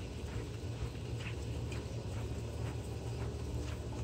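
Spin-on oil filter being turned onto its mount by hand, with a few faint light scrapes and clicks, over a steady low hum.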